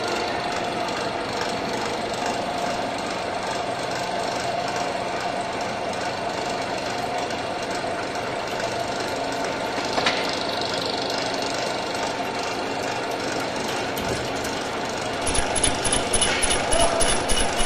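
Heavy-duty belt-driven lathe and workshop machinery running with a steady mechanical hum, with one sharp click about ten seconds in. Near the end the lathe's chuck spins up with a steel workpiece, and a rhythmic pulsing knock of about three beats a second sets in.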